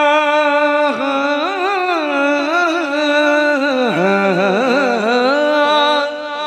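A singer's long wordless melismatic run in a Hindi devotional bhajan. The note is held steady at first, then winds up and down in ornamented turns, dipping lower near the middle.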